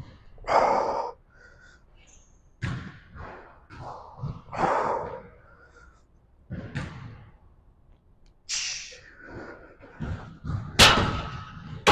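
A man breathing hard in short, forceful exhales, one every second or two, through reps of barbell Romanian deadlifts, with a sharp clank about eleven seconds in.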